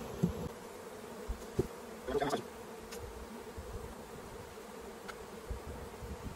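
Honeybees buzzing in a steady hum around an opened honey super, with a few brief knocks scattered through.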